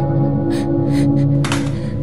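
Background music of long, held droning notes, with a short burst of hiss about one and a half seconds in.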